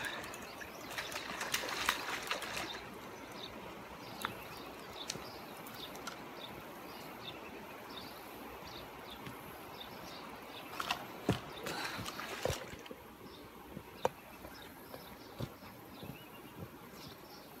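Rustling, scraping and sharp knocks as a big blue catfish is landed and handled on a muddy river bank, in two louder bouts about a second in and again near the middle, over a faint outdoor background with short repeated chirps.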